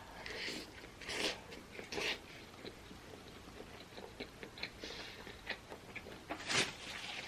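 Close-miked eating sounds: a few loud bites or slurps in the first two seconds and one more near the end, with soft, wet chewing clicks in between.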